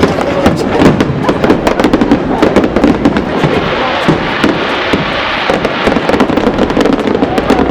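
Fireworks crackling and banging in quick succession: many sharp bursts close together.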